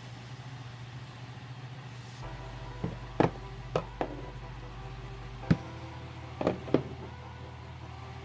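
Several sharp clicks and knocks of metal shifter parts being handled and set down, over a steady low hum.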